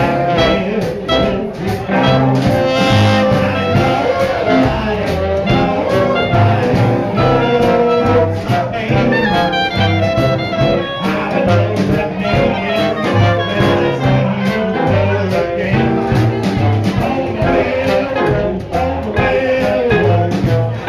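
Live swing jazz band playing, with a steady beat in the bass and drums.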